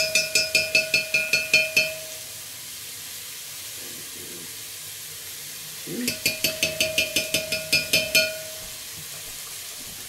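Metal spoon stirring water in a glass mixing bowl, clinking quickly against the glass with a ringing tone, about seven strikes a second. It comes in two spells: one that stops about two seconds in, and another that starts about six seconds in and lasts about two seconds.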